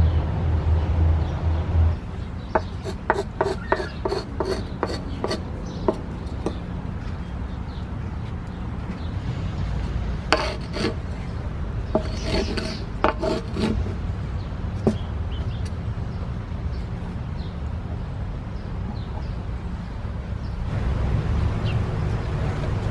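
Hand and a flat scraper rubbing and scraping grated cassava across a clay griddle while a cassava bread is spread and shaped, in short strokes that come in two runs.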